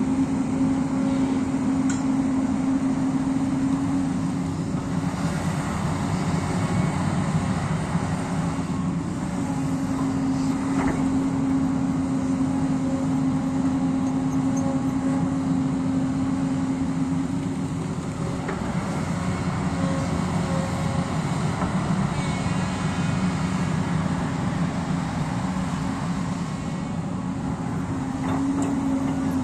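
Hyundai crawler excavator's diesel engine running steadily while it digs into the hillside, its note dipping and coming back several times as the load on the hydraulics changes, with a few faint knocks of rock.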